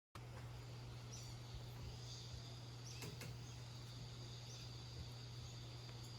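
Faint outdoor ambience: a steady high-pitched trill over a low steady hum, with a sharp click about three seconds in.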